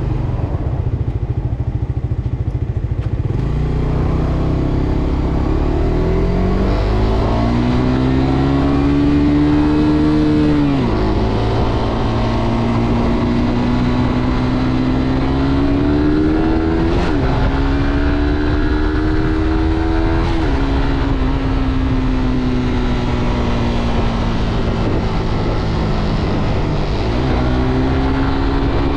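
Suzuki GSX-R125's single-cylinder four-stroke engine pulling away from low revs and accelerating through the gears: its pitch climbs, then drops sharply at each upshift, about eleven, seventeen and twenty seconds in. It then holds a steady, slightly easing pitch before another gear change near the end, over wind and road noise.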